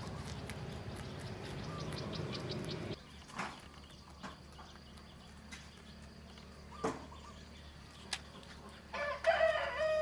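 Rabbit chewing water spinach, with scattered soft crunching clicks. Near the end a rooster crows once, a long pitched call and the loudest sound.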